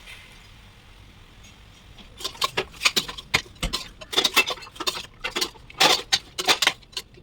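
Irregular quick clicks and knocks of kitchen utensils at work, starting about two seconds in.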